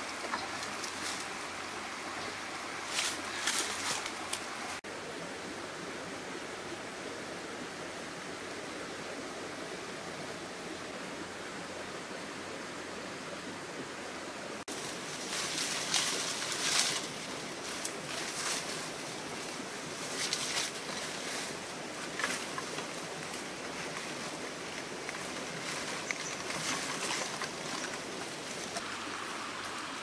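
Steady rush of a flowing stream, broken several times by short bursts of crackling and rustling as dry brush and leaf litter are disturbed.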